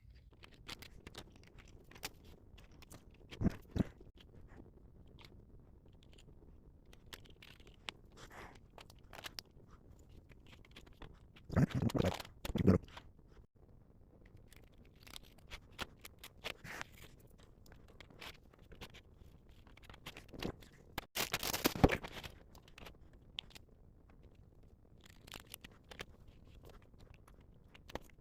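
Hands handling 3D-printed plastic rack parts on a workbench: scattered small clicks and light scrapes, with louder clattering bouts about 3.5 s, 12 s and 21 s in.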